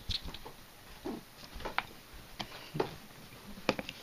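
Puppy eating from a dish: scattered small clicks and crunches of chewing and of the dish being nudged, coming irregularly a few times a second.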